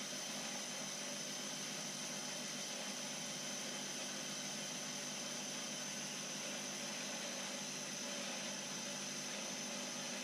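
Small benchtop metal lathe running steadily while taking a slow facing cut across the face of the spinning workpiece: an even motor and gear hum with a thin high whine over it.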